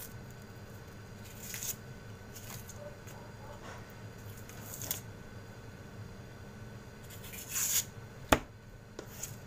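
A kitchen knife working on a red onion on a plastic cutting board: dry papery rustles and scrapes of the onion skin, with a single sharp knock about eight seconds in, the loudest sound. A steady low hum runs underneath.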